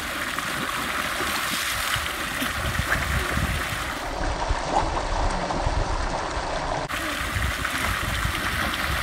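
Swimming-pool water jet spraying into the pool, a steady rush of splashing water.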